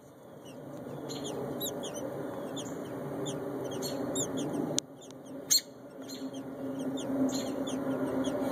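American robin nestlings begging: a continuous run of short, high, falling cheeps, several a second, over a steady low rumble. A sharp click cuts in about five seconds in.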